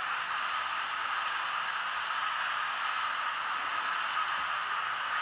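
A steady hiss like static, with nothing else standing out.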